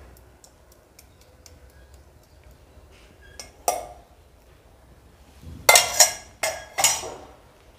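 Metal spoon scraping and clinking against a steel bowl as the last of the egg mixture is emptied into the frying pan: faint ticks at first, one sharp clink near the middle, then a cluster of loud clanks near the end.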